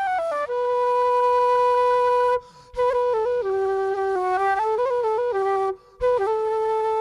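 Background music: a slow solo melody on a flute-like wind instrument, long held notes stepping up and down, broken twice by short pauses.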